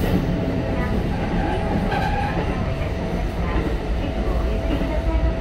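Keikyu 1500 series commuter train running, heard from inside a motor car: steady wheel-on-rail rumble with the tones of its Toyo IGBT-VVVF inverter and traction motors.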